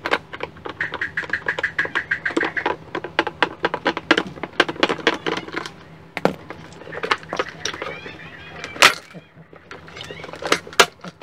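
Rapid clicks, taps and rattles of a rice cooker being handled and taken apart, with a louder knock about nine seconds in. Birds chirp in the background.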